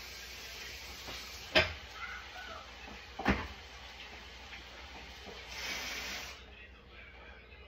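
Two sharp knocks about a second and a half apart, then a hiss lasting about a second near the end.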